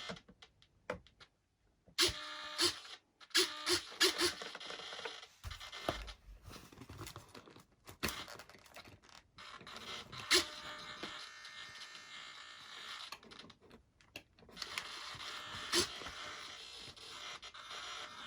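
Small RC model servos whirring in short bursts as they are driven back and forth, with clicks, about 2 to 4.5 seconds in, then a faint steady buzz with an occasional click.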